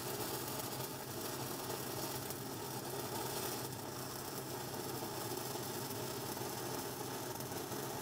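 Stick (shielded metal arc) welding with a 6010 electrode at about 80 amps: the steady crackle of the arc running a root pass in an open butt joint, with the rod held at a tight arc length. A steady low hum runs beneath it.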